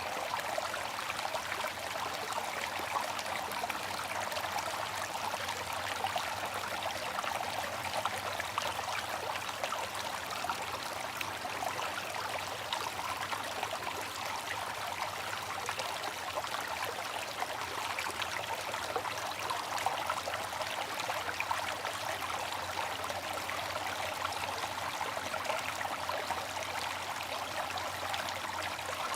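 Bamboo water fountain: a steady trickle of falling water, a continuous hiss flecked with fine splashing.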